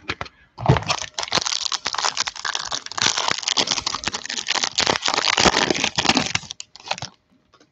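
Plastic wrapper of a football trading-card pack crinkling and crackling as it is torn open by hand. The crackle stops about seven seconds in.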